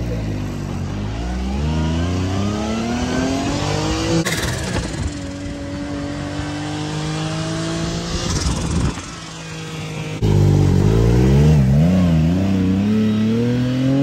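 Side-by-side UTV engine accelerating, its pitch climbing steadily, dropping back about four seconds in and climbing again. In the last few seconds it is louder and revs up and down before climbing once more.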